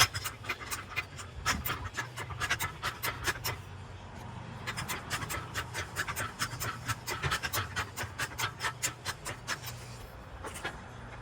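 Ratchet wrench clicking in two quick runs of rapid, evenly spaced clicks, with a short pause between them.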